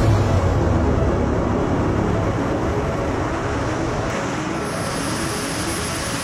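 Steady roar of the jet turbines on a Zapata flying platform as it comes in to land, with the hiss growing stronger about two-thirds of the way through. Background music with a melody plays over it.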